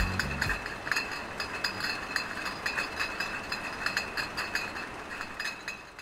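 Glass clinking and rattling in a quick, dense clatter with a steady high ring, fading out; background music ends about half a second in.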